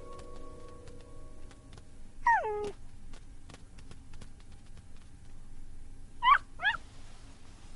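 Kitten meowing: one drawn-out meow falling in pitch about two seconds in, then two short meows in quick succession near the end.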